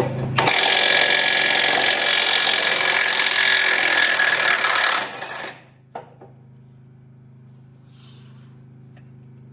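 Power impact wrench running for about four and a half seconds, spinning out a loose engine bolt, then stopping abruptly.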